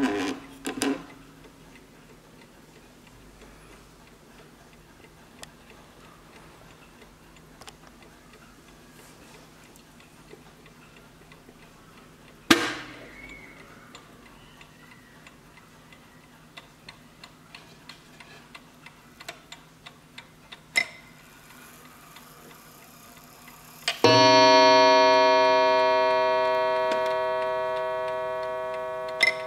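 1920 German BWL Napoleon-hat mantel clock: a few wooden knocks and one loud knock midway, light ticking of the pendulum movement, then its coiled wire gong struck once, ringing long with many tones and slowly dying away, and struck again just at the end.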